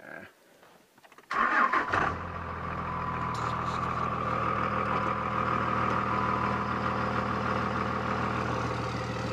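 Pickup truck engine cranked by the starter about a second in, catching within about a second and settling into a steady idle, heard from inside the cab. A steady high whine sits over the idle.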